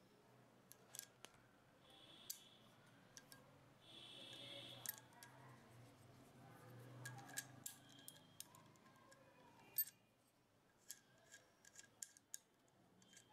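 Faint clicks and light metallic taps from handling a steel hand rivet gun and working a spare nose piece off its handle, with a couple of short scrapes and one sharper click late on.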